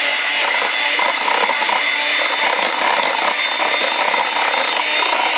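Electric hand mixer running steadily at speed, its motor whining while the beaters churn through cake batter.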